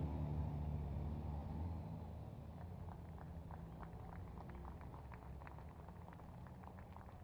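Honda Gold Wing touring motorcycles riding away at low speed, their engine hum loud at first and fading over the first couple of seconds. After that a quieter hum remains, with scattered faint ticks.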